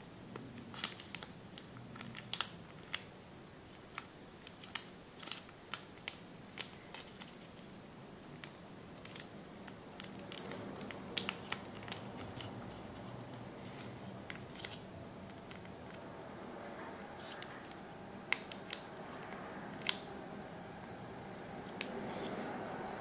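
Origami paper crackling and snapping in the fingers as a folded model is creased and shaped, in irregular sharp clicks, one or two a second, thinning out in the second half. A soft background noise builds from about halfway through.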